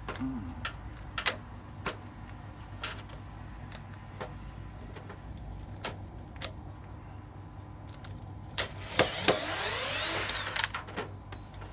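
Scattered clicks and knocks of handling parts and screws, then near the end a power drill runs for about a second and a half, its pitch sweeping as it spins.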